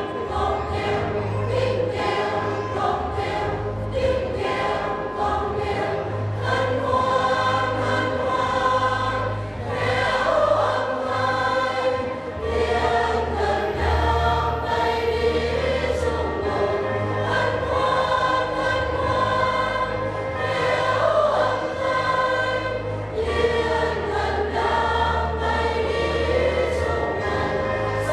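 Church choir singing a Vietnamese Christmas hymn over accompaniment with a steady bass and regular beat.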